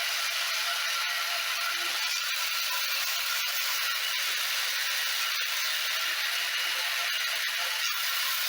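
Electric motor driving a 3D-printed plastic gearbox, the gears and shafts running steadily with the output engaged for reverse rotation.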